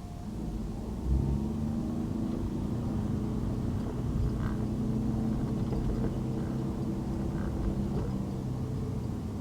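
Car engine and road noise while driving: a steady low engine hum that gets louder about a second in and then holds.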